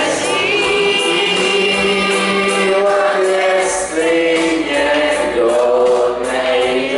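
A man singing a Czech song into a microphone, with women's backing vocals and instrumental accompaniment with a steady beat, held sung notes gliding between pitches.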